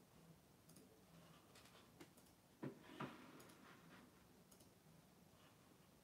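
Near silence in a small room, with faint scattered clicks and two louder clicks close together around the middle.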